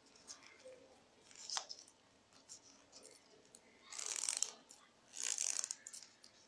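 Crinkling rustle of a flattened, painted newspaper tube being wound tightly around a pen, in two short bursts about four and five seconds in, with a faint click earlier.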